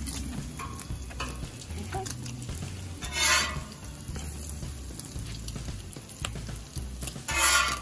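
Food frying with a steady sizzle, broken by two short, loud hissing bursts, about three seconds in and again near the end.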